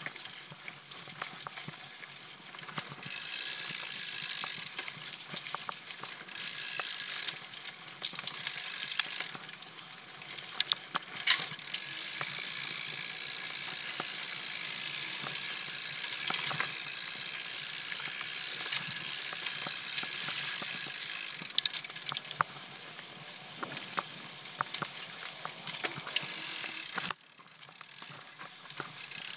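Mountain bike rear freehub buzzing as the bike coasts, in stretches of several seconds, the longest about nine seconds, broken by quieter spells, with occasional sharp knocks and rattles.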